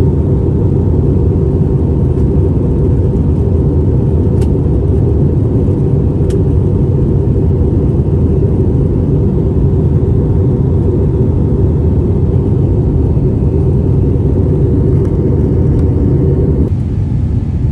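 Steady low rumble of an airliner's engines and airflow heard inside the passenger cabin as it descends to land, with a faint steady hum above it. The rumble eases a little about a second before the end.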